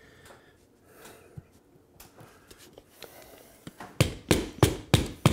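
A plastic wall plug being tapped into a hole drilled in ceramic wall tile: quiet handling for the first few seconds, then a quick run of about six sharp taps, roughly three a second, from about four seconds in.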